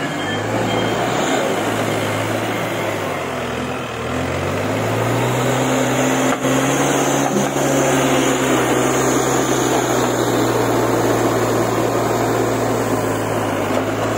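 Diesel engine of a Case 770EX backhoe loader running under work. Its revs waver for the first few seconds, then rise about four seconds in and hold steady and high.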